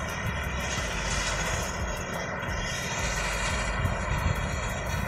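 Steady drone of an engine running at a constant speed, an even hum with no change in pitch.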